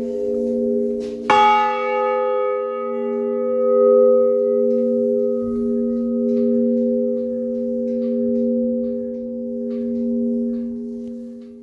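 The full peal of three Bratia Fischer bronze church bells (tuned G♯, C and F♯) coming to an end. There is one last clapper strike about a second in, then the bells' tones hum on and slowly die away, fading out near the end.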